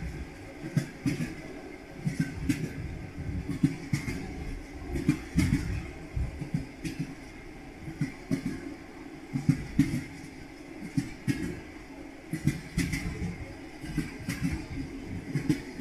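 Train wheels clacking over rail joints: a rhythmic clickety-clack of knocks in clusters every second or two over a steady rolling rumble.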